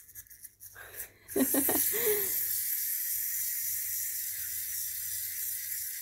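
Small clockwork motor of a wind-up toy helicopter whirring steadily, starting about a second in after a few light clicks and slowly getting quieter.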